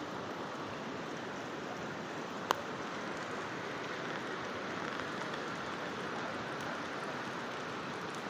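Steady rushing noise of the flooded Neelum River's water, with one sharp click about two and a half seconds in.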